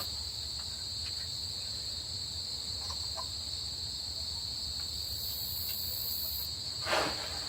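Crickets chirping in a steady background chorus, with a couple of faint clicks and a soft knock near the end.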